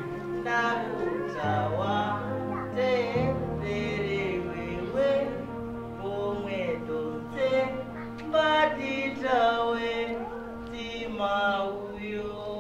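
A voice singing a song with long held, bending notes, over steady low accompanying tones that shift pitch a couple of times early on.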